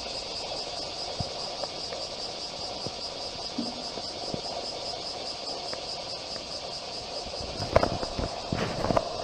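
Insects chirping steadily in a fast, even pulse, with a few sharp clicks and rustles about eight seconds in.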